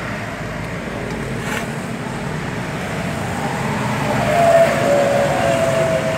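Steady road traffic noise, with a vehicle growing louder from about four seconds in and a thin steady whine over it.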